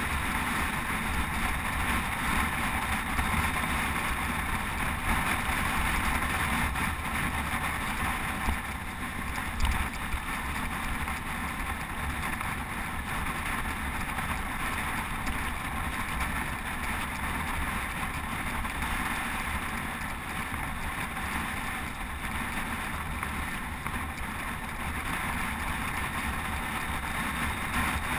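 Steady wind rush on a GoPro's microphone at road-cycling speed, with a short knock about nine and a half seconds in.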